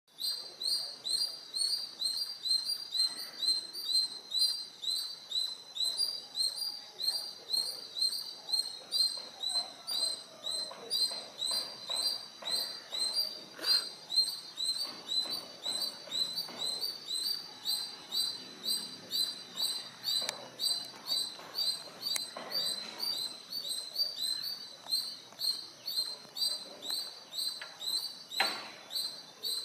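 A high-pitched animal chirp repeating very regularly, about two to three times a second, over a steady high hiss.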